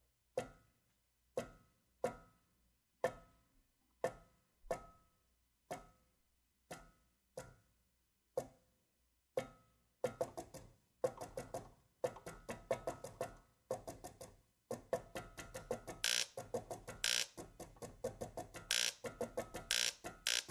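MIDI-controlled household appliances and power tools played as a rhythm piece: a steady beat of single knocks with a short ringing tail, about one and a half a second. About halfway through, a busier clicking rhythm joins, and near the end short hissing bursts come in on the beat as a tool is switched on and off.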